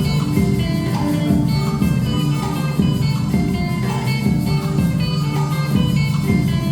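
Live instrumental ensemble playing a song: a melody of changing notes over a steady, dense accompaniment.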